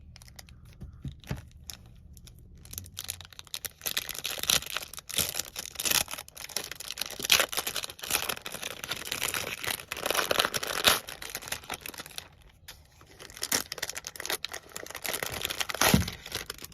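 Crinkly packaging on a cologne box being torn open and crumpled by hand, in two long stretches of dense crackling with a short pause between them, and a knock near the end.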